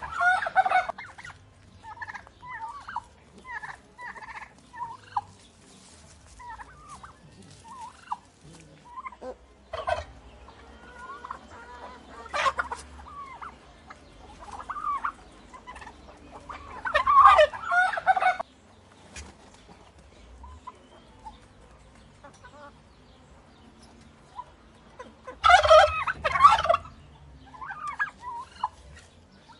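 Turkeys gobbling: three loud, rattling gobbles come at the very start, about two thirds of the way through, and near the end. Short, softer turkey calls come in between.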